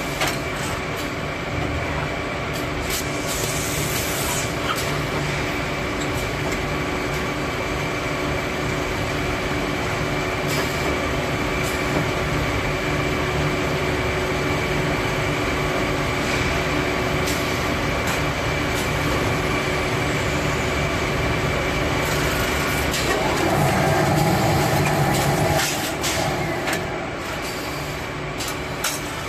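Automatic drum-liner bag-tying machine and roller conveyor running: a steady mechanical hum with scattered short clicks and knocks from the moving arms. A louder rumble lasts a few seconds near the end.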